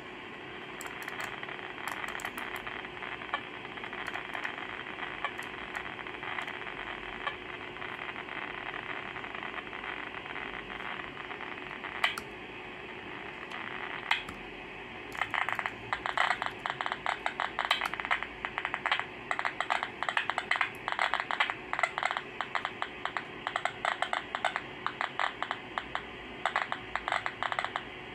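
Receiver audio from a uSDR (CN-SDX) QRP transceiver tuned to the 40 m band in upper sideband: steady band hiss with a faint steady tone under it. Two sharp clicks come about 12 and 14 seconds in. From about halfway the hiss turns to a louder, dense crackle of static.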